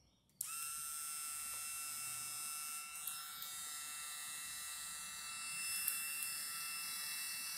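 A vending machine's geared DC dispensing motor switches on with a click about half a second in, then runs with a steady high-pitched gear whine, driven through a relay from the Arduino controller. A couple of faint ticks come near the end.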